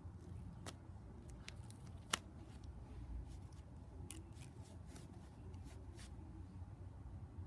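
Paper cards being handled: faint rustling and scattered small clicks, with one sharper click about two seconds in.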